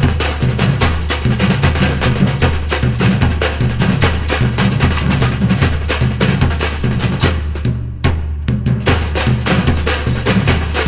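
Brazilian percussion ensemble playing: deep bass drums beat a steady repeating pattern under dense, fast snare and hand-drum strokes. About seven seconds in, the higher drums stop for about a second while the bass drums carry on.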